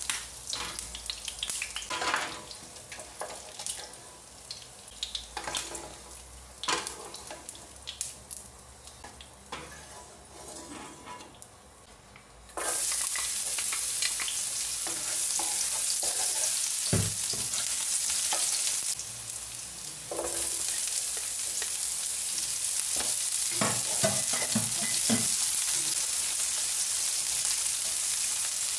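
Salmon balls being lifted out of a frying pan with a metal slotted spoon and a wooden spatula, the utensils clinking and scraping on the pan. About twelve seconds in, chopped garlic goes into the hot cooking oil and a loud, steady sizzle starts suddenly. The sizzle dips briefly and then runs on as onion is stirred in with the wooden spatula.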